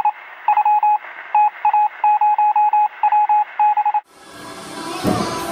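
A run of short electronic beeps at one pitch, like telephone keypad tones, coming in quick groups of three to six, with a thin, phone-like quality; they cut off suddenly about four seconds in. Music then fades up and gets louder towards the end.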